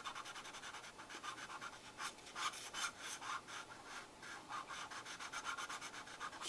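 Felt-tip marker scratching on paper in many quick, short strokes, faint and steady, a little louder about two to three seconds in.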